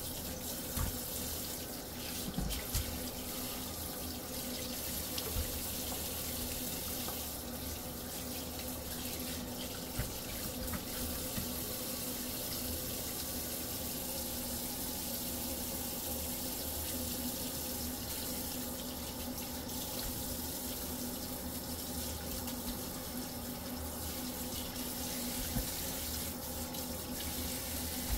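Kitchen tap running steadily into a stainless steel sink, water spattering over fish in a plastic colander as they are rinsed and turned by hand, with a few small knocks from the handling.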